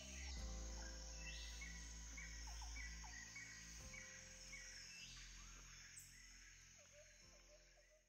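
Soft ambient background music of sustained chords changing every few seconds, with short repeated chirping notes, fading out near the end.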